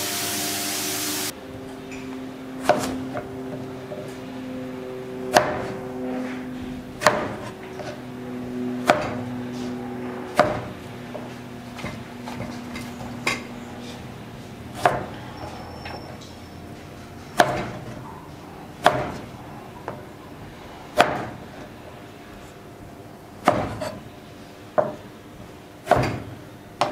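A large kitchen knife chopping small African eggplants (garden eggs) on a cutting board, a sharp knock each time the blade strikes the board, every second or two. It opens with about a second of sizzling from greens frying in a wok.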